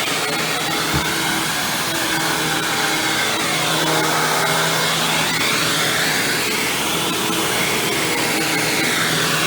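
Hoover WindTunnel Supreme upright vacuum cleaner running steadily, with a steady hum under a whine whose pitch rises and falls in slow sweeps. A brief thump about a second in.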